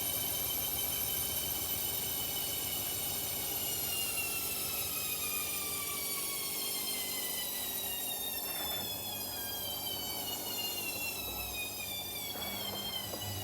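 Washing machine spinning down from a high-speed spin, its motor and drum whine falling steadily in pitch.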